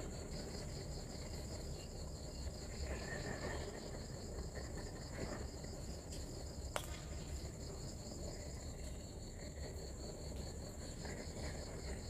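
Night insects trilling steadily, two high pulsing trills at different pitches overlapping without a break. A single sharp click sounds about seven seconds in.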